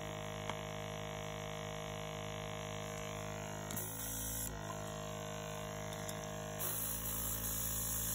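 Small airbrush compressor running with a steady hum. A brief hiss of air comes about four seconds in, and near the end the airbrush starts spraying with a steady hiss.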